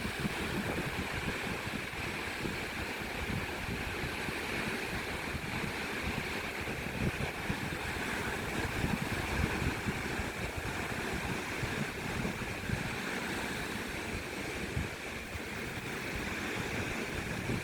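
Black Sea waves washing steadily onto the shore, with wind buffeting the microphone.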